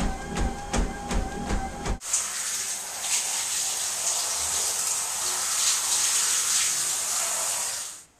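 A treadmill running, a steady motor whine under footfalls pounding the belt about three times a second. About two seconds in it gives way to a shower spraying steadily, which cuts off near the end.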